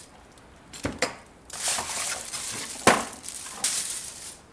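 Packaging being handled during unboxing: a couple of knocks about a second in, then a long stretch of rustling with sharp clicks as the tool is pulled out of its box and wrapping.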